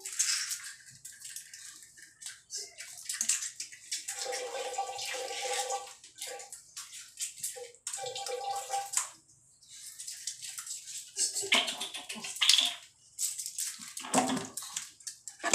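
Water splashing and running in a tiled shower stall as a small white dog is washed, in irregular splashes. Twice a short steady tone sounds in the middle.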